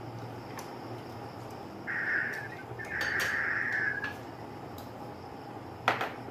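Slurping broth from a small bowl: a short slurp about two seconds in, then a longer one a second later. A sharp clink near the end.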